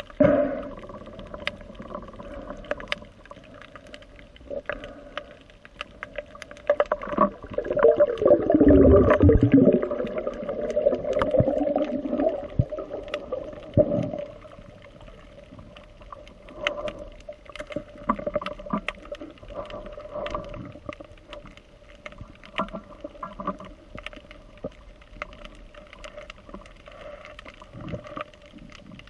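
Underwater sound picked up by a submerged action camera during a swim: a steady hum and many scattered short clicks. About eight seconds in comes a louder gurgling, bubbling stretch with falling sweeps, which dies away by about fourteen seconds.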